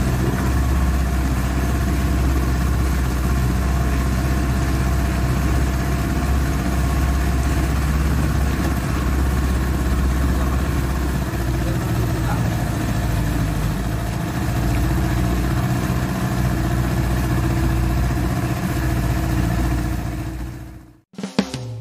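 A small boat's engine running steadily, heard from on board while under way. It fades out near the end.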